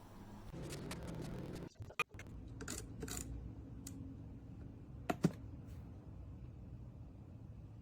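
Handling noise: a handful of light, sharp clicks and knocks of small hard objects, with the loudest, a quick double click, about five seconds in.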